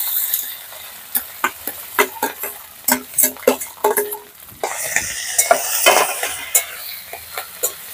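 Metal spatula stirring and scraping boiled potato in a sizzling metal kadai of hot mustard oil, with many quick clicks and scrapes of metal on metal as the bowl and spatula knock against the pan.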